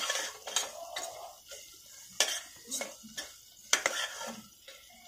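A spatula stirring and scraping a thick onion and spice masala being sautéed in oil in a stainless steel pressure cooker pot, with irregular sharp scrapes and knocks against the steel and a faint sizzle underneath.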